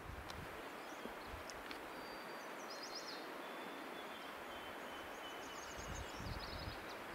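Outdoor forest and lakeshore ambience: a steady background hiss, with short high trilled phrases of small songbirds about two and a half and six seconds in, and a few low rumbles.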